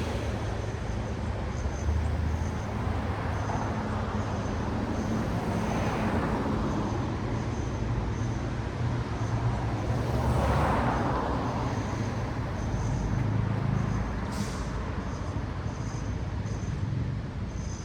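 Road traffic with cars passing: two clear pass-bys swell and fade about six and ten seconds in, over a steady low engine rumble. A short sharp hiss comes near the fourteen-second mark.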